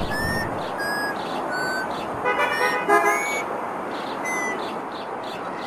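Steady traffic-like noise with a short honk like a horn toot about two seconds in, over repeated short, falling chirps.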